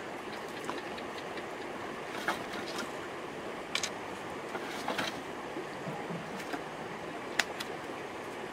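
Open wood fire crackling, a few sharp pops over a steady rushing background.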